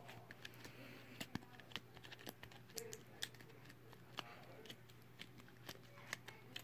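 Slime being poked with fingers, making a run of small, irregular clicks and pops.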